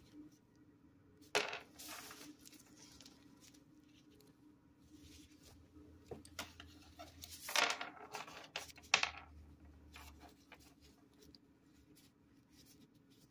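Handling noises: disposable plastic gloves rustling and a few short taps and clatters. A sharp one comes about a second and a half in, and there is a cluster around eight to nine seconds in.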